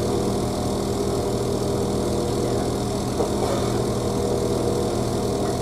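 A stationary train's engine idling steadily, heard from inside a passenger carriage.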